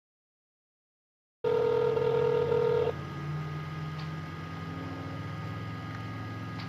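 Telephone ringing tone heard down the line as a call is placed: one steady tone of about a second and a half that starts suddenly after a moment of dead silence, then a low steady line hum while the call waits to be answered.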